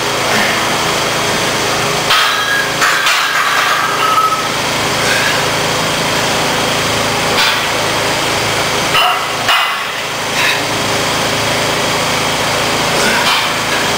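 Steady mechanical hum filling the gym, with a handful of short clinks and knocks from the plate-loaded EZ curl bar during barbell curls.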